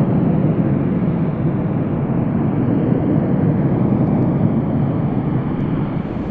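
Twin-engine business jet climbing away after takeoff: a steady, deep jet-engine rumble that eases slightly toward the end. About six seconds in, the sound changes abruptly at a cut.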